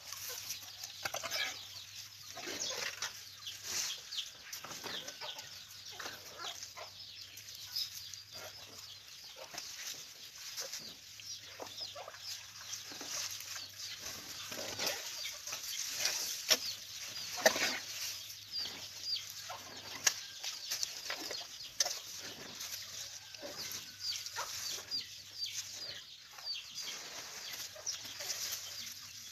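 Elephants feeding on a pile of cut grass and chopped fruit: leaves rustling and fruit crunching as they pick it up and chew, a dense, irregular run of short crackles and snaps.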